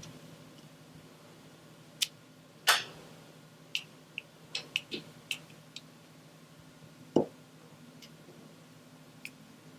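Diamond painting tools clicking and tapping as resin drills are picked up and placed on the sticky canvas. The clicks are scattered and irregular, with a quick run of small clicks a few seconds in and a single duller knock near the end.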